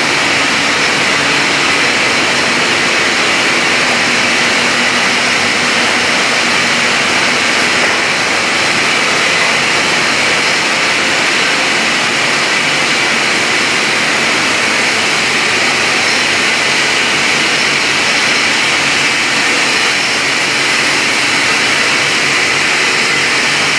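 Loud, steady din of bottling-plant machinery: an even, unbroken rushing noise, strongest in the upper-middle range, with no change in level.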